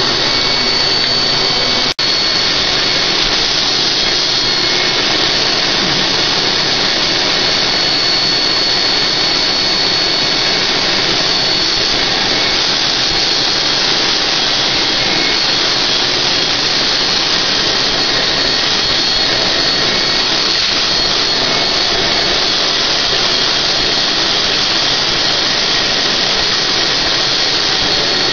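HVLP turbine spray rig running steadily while its spray gun sprays UV top coat onto a bathtub: a constant rush of air with a steady high whine, broken by a brief dropout about two seconds in.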